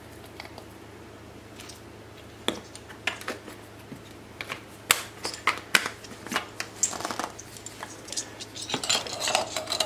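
Scattered light clicks and taps as a small glass spice jar is handled and the plastic blender lid is picked up and fitted onto the blender jar. The taps start about two and a half seconds in and come more often in the second half.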